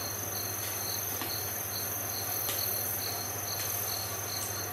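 Crickets chirping steadily, about three chirps a second, over a continuous high steady tone and a low hum. A few faint clicks from handling kitchen things.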